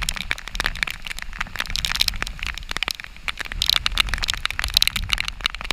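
Rain and spray striking a small action camera's housing in many rapid, irregular sharp ticks, over a steady low rumble of storm wind on the microphone.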